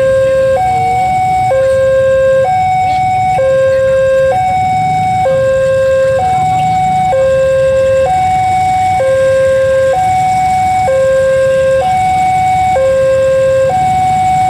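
Railway level-crossing warning alarm sounding a steady two-tone hi-lo signal, each tone held about a second, alternating over and over. A low rumble runs underneath.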